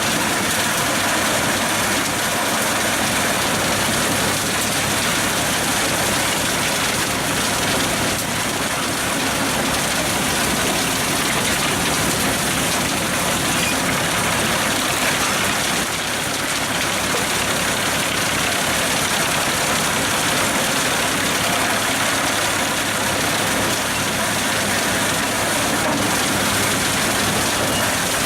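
Pezzolato PTH 700 G drum wood chipper running off a Fendt tractor's power take-off, with the tractor engine and spinning chipper drum making a loud, steady mechanical noise.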